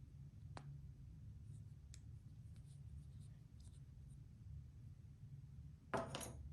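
Sparse small clicks and handling sounds of keyboard parts being worked on during a build: one sharp click, a few faint ticks, then a louder short clatter near the end.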